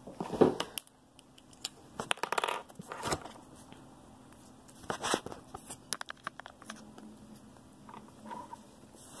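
Scattered light clicks and rustles of hands handling markers and paper close to the microphone, including a felt-tip marker being capped.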